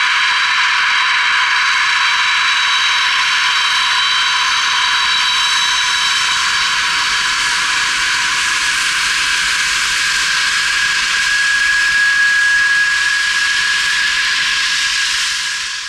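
Antonov An-124-100's four Progress D-18T turbofans running at low power as the big freighter moves close by. The sound is a steady, loud hiss with several high whining tones, one of which grows stronger about two-thirds of the way in.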